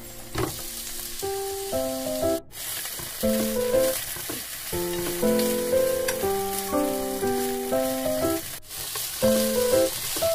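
Sliced garlic and onion sizzling in hot oil in a frying pan, stirred with wooden chopsticks. A light background melody comes in about a second in and is the loudest sound, cut briefly twice.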